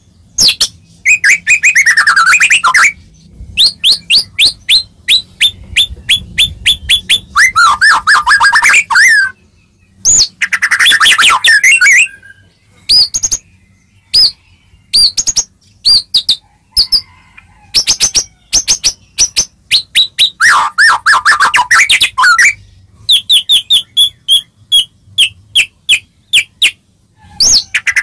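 White-rumped shama (murai batu) singing loudly in varied phrases with short pauses between them. The phrases mix runs of rapidly repeated clear whistled notes with tangles of lower, scratchy warbling.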